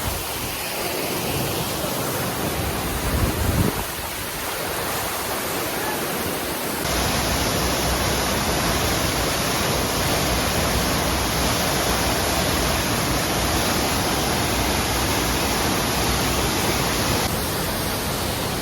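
Waterfall rushing steadily, a constant hiss of falling water. A brief low rumble comes about three seconds in. About seven seconds in the rush turns suddenly louder and fuller, and it drops back about ten seconds later.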